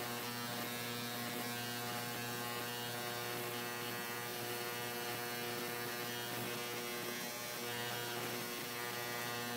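Baku BK-9050 ultrasonic cleaner running with a phone motherboard in its water tank: a steady electric hum and buzz with a faint hiss above it, unchanging throughout.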